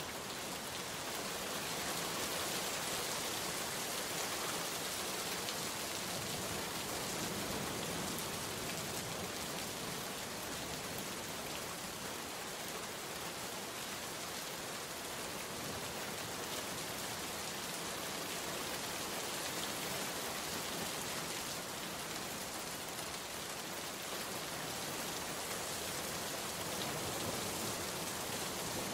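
Steady rainfall pattering on a surface, an even hiss of many drops without a break.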